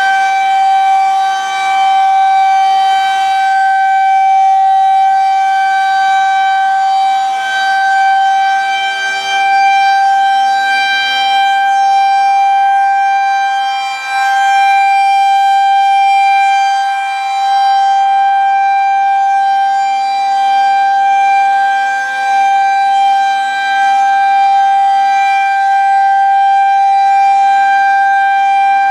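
Federal Signal 2001-130 rotating electromechanical siren sounding the Alert signal: one loud, steady, unbroken tone held at constant pitch. It swells and fades every few seconds as the rotating horn sweeps past.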